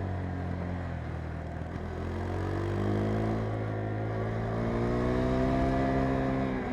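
KTM 390 Adventure's single-cylinder engine under way: revs sit low for the first couple of seconds, then climb steadily as the bike accelerates, holding high near the end.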